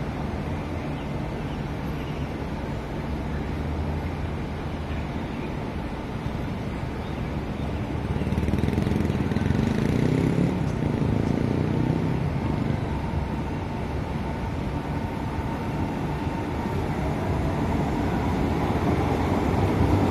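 SMRT C151 metro train pulling away from an elevated station, its motor whine rising in pitch over the last few seconds as it gathers speed. Under it is a steady low rumble that grows louder about eight seconds in.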